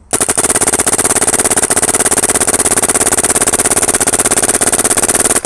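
Dangerous Power G5 Spec-R electropneumatic paintball gun firing a long, fast, even string of shots in ramping mode, with a brief break near the end.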